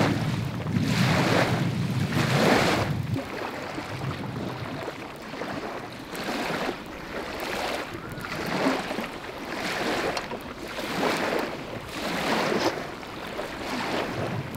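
Small waves washing on the Lake Motosu shore, swelling and fading every second or two. A low rumble stops about three seconds in.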